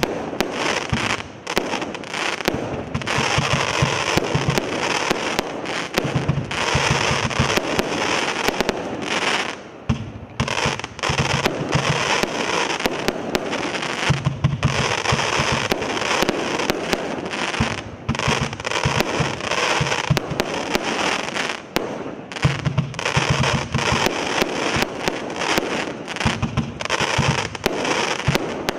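Absolute Fireworks Claymore multi-shot firework barrage firing continuously: a rapid, dense run of shots and bursts with crackle. There are brief lulls a couple of seconds in, about a third of the way through and about three quarters of the way through.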